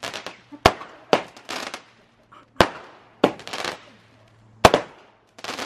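Aerial fireworks bursting overhead. Three sharp bangs come about two seconds apart, each followed by a smaller bang and a spray of crackling.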